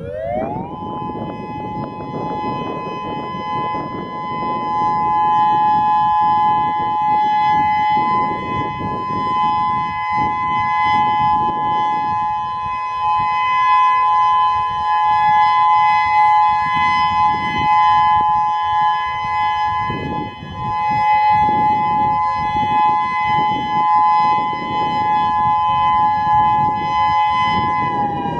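Federal Signal Modulator 5020 dual-tone outdoor warning siren winding up within the first second to a steady two-tone chord. It holds a level alert signal, its loudness swelling and easing, and starts to wind down near the end.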